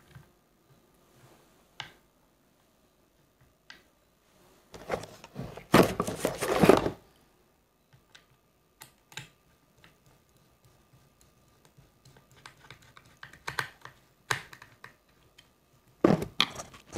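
Hands handling a Gamo Shadow 1000 air rifle's synthetic stock and action: a burst of rapid clicks and rattles about five seconds in, then scattered single clicks and a second run of clicking and taps near the end.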